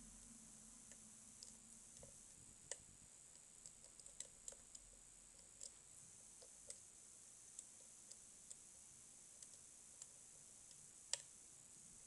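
Faint, irregular light clicks of a pick and tension wrench working the pins inside a Mul-T-Lock dimple cylinder, over a low steady hiss; the sharpest click comes about eleven seconds in.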